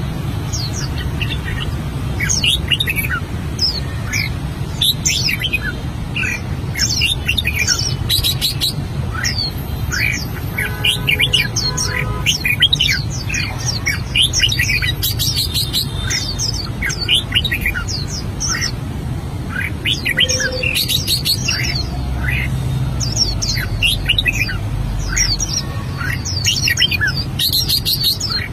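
White mutant red-whiskered bulbul singing: a continuous run of quick, sweeping chirps and whistled notes, over a steady low hum.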